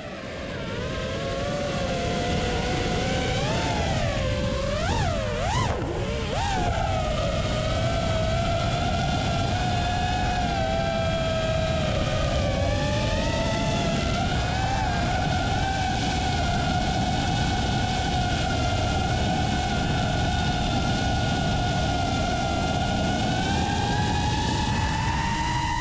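FPV quadcopter's brushless motors and propellers whining, the pitch swooping down and up sharply a few times about four to six seconds in as the throttle is worked, then holding a steady whine that climbs a little near the end. Wind rush on the onboard microphone lies beneath.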